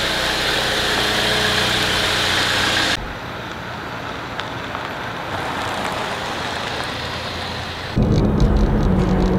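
A car's engine and rushing noise, loud and steady, switching abruptly to a quieter, duller noise about three seconds in. Near the end a strong, low, steady pitched sound comes in.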